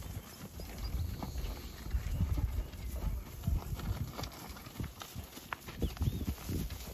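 Hooves of zebu (Brahman-type) cattle walking and trotting on a dirt track: irregular thuds and knocks as several animals pass close by.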